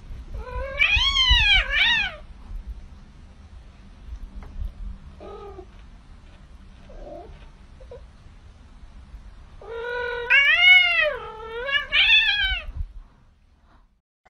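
Cat meowing: two long, loud meows near the start and three more about ten seconds in, each rising and then falling in pitch, with a few faint short mews in between.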